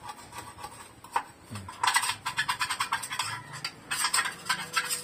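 Metal clinks and taps of hand tools and engine parts being handled during engine work, in quick irregular clusters.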